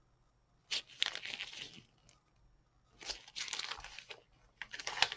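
Crinkly packaging being handled and crumpled, in three rustling spells of about a second each.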